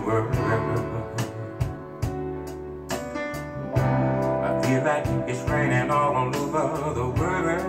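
Soul ballad playing over a pair of hi-fi speakers: a male voice sings with a wavering vibrato over a band with bass and a steady, regular beat.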